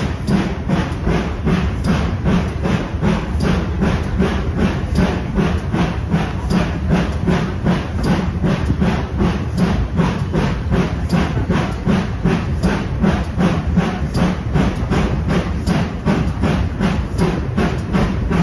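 GWR Manor class 4-6-0 steam locomotive Odney Manor working along the line, its exhaust chuffing in a steady, even rhythm of about four beats a second over the rumble of the train, heard close from a leading carriage window.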